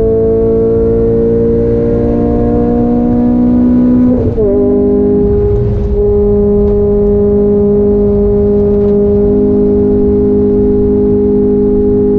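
Renault Clio 200 Cup's naturally aspirated four-cylinder engine under throttle, heard from inside the cabin. The engine note climbs steadily for about four seconds, then drops sharply at an upshift with a brief dip in loudness. After that it holds an almost steady pitch.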